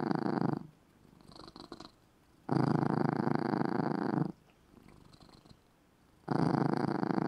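A drowsy house cat purring loudly in long swells about every four seconds, each lasting nearly two seconds, with much quieter purring between them.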